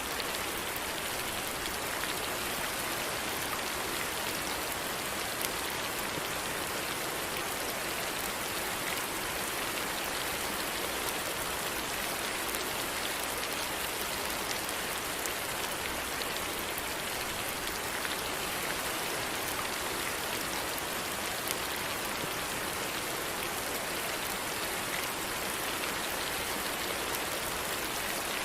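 Steady rain falling on a surface, an even hiss with scattered drop ticks and no change in intensity.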